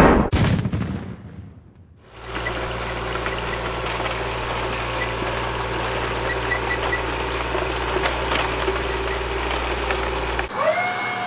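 The tail of a cannon blast, two sharp bangs that die away, then a steady, low tank-engine rumble sound effect. Near the end the rumble gives way to a whistle that rises quickly and then holds steady.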